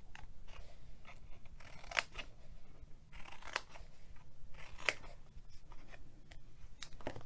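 Small scissors snipping short slits into scored cardstock: a series of separate crisp snips about a second or so apart.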